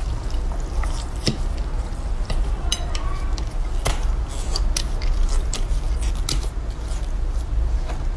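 A block of slime squished between fingers, with many short, sharp pops and crackles at irregular intervals as it is pressed and squeezed.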